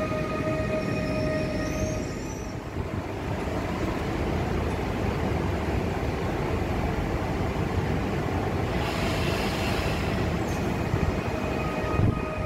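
Koleje Śląskie Pesa Elf 2 (class 27WEb) electric multiple unit at the platform, giving a steady low rumble and hiss. A steady electrical whine stops about two seconds in and comes back near the end. A short hiss sounds about nine seconds in.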